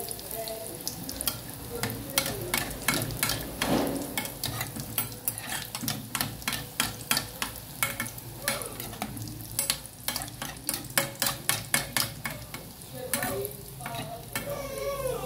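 Bolinhos de chuva (batter fritters) frying in hot oil in an aluminium pot: a steady sizzle, with repeated sharp clicks and scrapes from a metal utensil against the pot as the fritters are turned.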